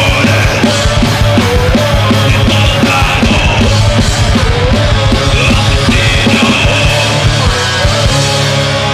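Thrash metal band playing: fast drumming under distorted electric guitars and bass, with a held guitar note bending up and back repeatedly. Near the end the drums stop and a chord is left ringing.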